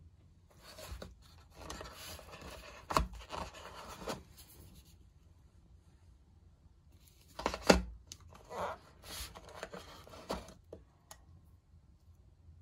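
A plastic skincare tube and then a plastic pump bottle being pulled out of a gift-box insert and handled: two bouts of scraping and rubbing with sharp clicks, the loudest click about three seconds in and another near eight seconds.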